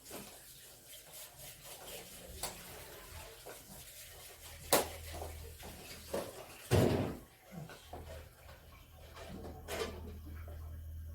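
Scattered knocks and clicks of objects being handled, with a heavier thump about seven seconds in, over a low steady hum that starts about five seconds in.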